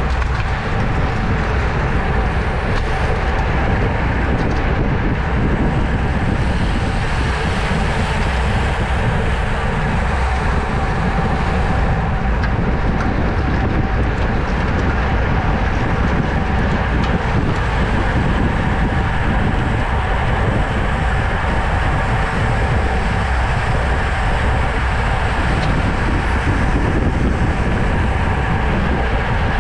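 Steady rush of wind over a bicycle-mounted GoPro's microphone while riding at race speed, with a low rumble and a faint steady hum underneath.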